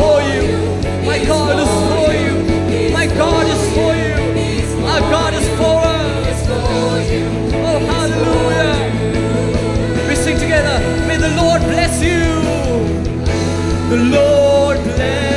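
Live worship band playing, with male and female vocalists singing the repeated line "He is for you, He is for you" over electric guitars, bass guitar and a drum kit.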